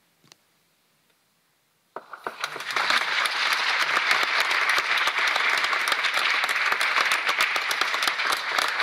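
Audience applause breaking out after about two seconds of near silence and quickly building to steady, dense clapping, at the end of a choir piece.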